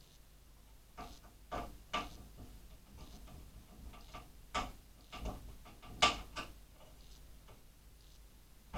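Light, separate clicks and taps of a metal M.2 NVMe drive cover being handled and fitted on a motherboard, about seven in all, the loudest about six seconds in.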